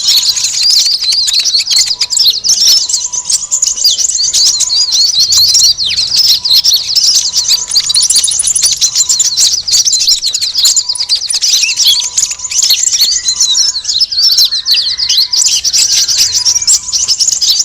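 Dense chorus of many small birds chirping rapidly and without a break, high-pitched and noisy: a bird-lure recording of excited small birds, used to draw in konin (kolibri ninja).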